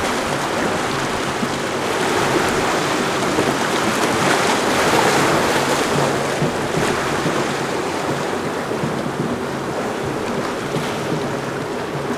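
Boat with a Yamaha 250 outboard running through rough inlet water: hull wash and breaking surf over a low, steady engine drone, with wind on the microphone. The water noise swells to its loudest about four to six seconds in.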